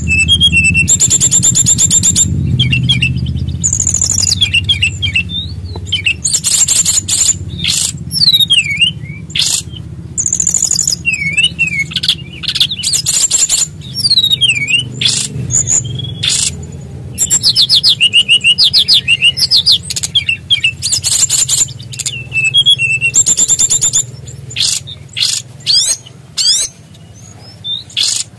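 A small SRDC songbird singing loudly in a varied, fast song: rapid rattling trills alternate with quick whistled notes that swoop up and down, in phrases broken by short pauses. A steady low hum runs underneath.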